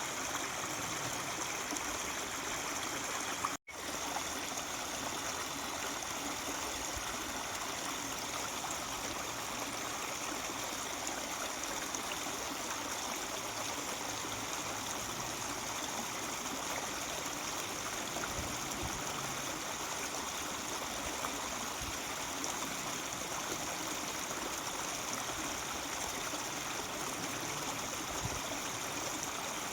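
Mountain stream babbling steadily over rocks, with a hiss of water. The sound cuts out for an instant about three and a half seconds in.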